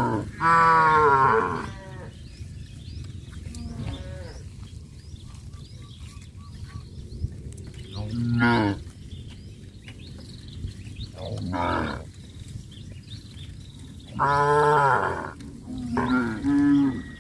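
Cattle mooing, about six separate calls: long, loud ones near the start and about three quarters through, and shorter ones in between and near the end.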